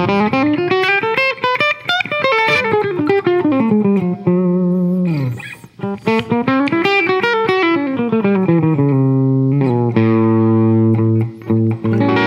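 Electric hollow-body guitar played through a Fairfield Circuitry Accountant compressor pedal: quick single-note runs that climb and fall, with a brief gap about halfway, then held notes ringing out near the end.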